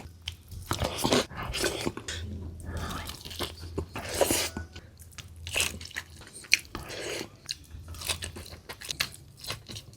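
A person chewing and crunching food close to the microphone, with many irregular crisp crunches and wet mouth sounds, over a low steady hum.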